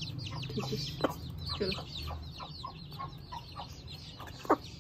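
Desi chicken chicks peeping continuously in high, short, falling notes while the mother hen clucks as they peck at scattered grain. One loud, short, sharp sound comes about four and a half seconds in.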